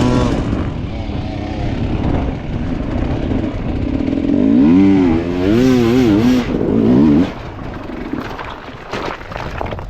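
Dirt bike engine revving hard. Its pitch swings rapidly up and down from about four to seven seconds in, then it drops away.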